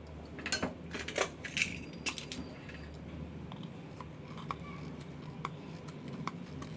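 Small hand tools clicking and scraping against a Bluetooth speaker's circuit board and charging socket: a quick cluster of sharp clicks in the first two seconds or so, then scattered light ticks, over a low steady hum.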